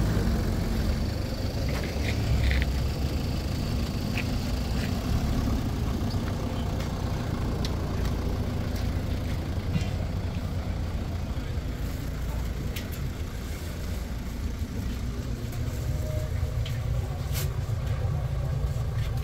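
Steady low rumble of open-air fairground ambience, with a few faint clicks scattered through it.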